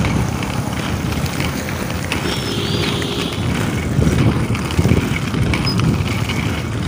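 Inline skate wheels rolling over rough asphalt: a steady, grainy rumble, mixed with wind buffeting the camera's microphone.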